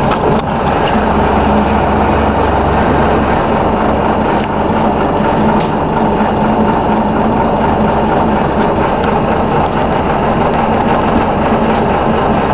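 Diesel engine of a Scania K93CRB bus running steadily, heard from inside the passenger saloon of its Wright Endurance body. The low drone changes about three seconds in, and there are a couple of light clicks and rattles from the interior.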